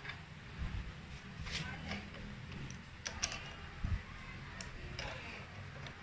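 Scattered light metal clicks and taps as a T-handle socket wrench is fitted to and turns the bolts of a scooter's front brake caliper.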